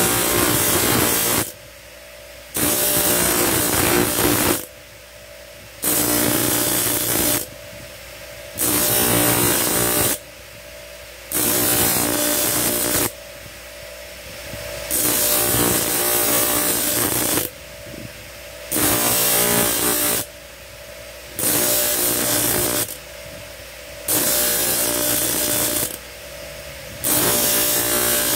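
Motor-driven grinding wheel grinding a small steel gaff blank in about ten passes, each 1.5 to 2.5 seconds long with short pauses between them, over the steady hum of the running motor.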